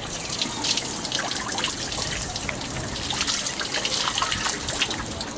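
Shower spray running onto a person's body and the tiled floor of a shower stall: a steady hiss of water with many irregular splatters.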